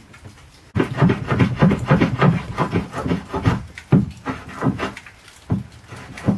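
Rapid, repeated strokes of a hand tool shaving a wooden rib blank, about three a second, starting suddenly under a second in: small trimming cuts to make the new rib fit.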